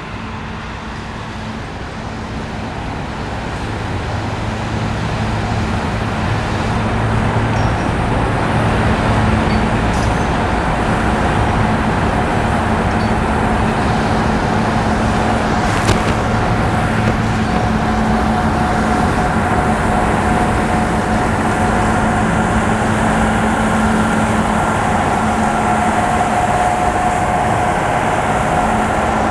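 Tugboat diesel engine running as the boat approaches and passes close by: a steady low hum that grows louder over the first several seconds and then holds, with a higher steady whine joining later.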